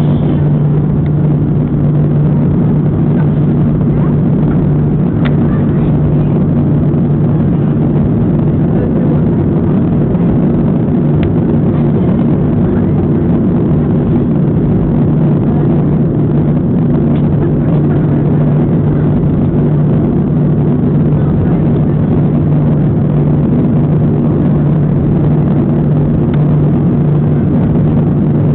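Boeing 737-300's CFM56 jet engines running, heard as a steady, even drone with a low hum and no change in level.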